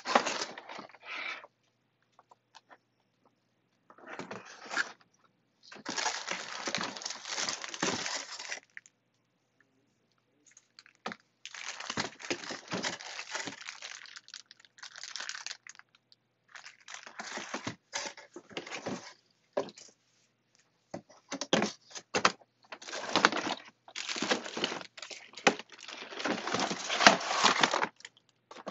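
Plastic packaging bags crinkling and rustling as they are handled, in irregular bursts of a second to several seconds with short silent gaps between them.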